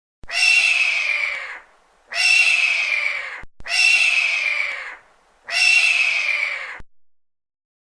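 Red-tailed hawk screaming four times, each call a hoarse, drawn-out scream of about a second and a half that falls slightly in pitch, with short gaps between.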